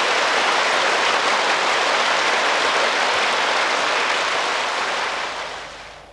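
Steady rushing noise with no tone or rhythm in it, fading away over the last second.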